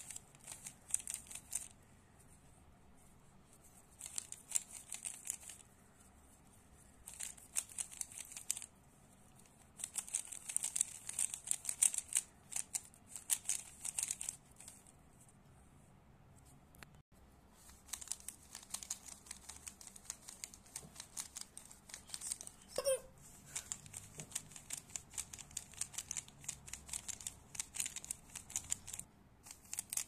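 Plastic 3x3 Rubik's cube turned fast by hand: the layers click and rattle in quick runs of turns, with short pauses between runs and a long unbroken run over the second half.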